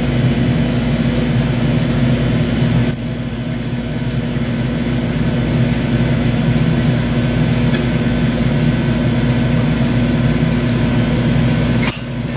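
Gas glassworking burners running with a steady low hum and hiss. The sound drops abruptly about three seconds in and changes again near the end.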